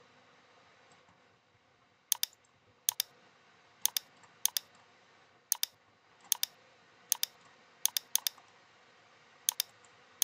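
Computer mouse clicks, about ten, starting about two seconds in and coming at irregular gaps of roughly a second. Each is a quick double click of button press and release.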